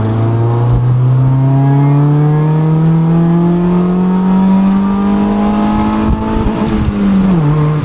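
Honda Civic EG four-cylinder engine through a cheap 'fart can' catback exhaust, heard from inside the cabin while accelerating hard in gear, its note rising steadily. Near the end there are a few short pops and the note drops sharply as the throttle comes off.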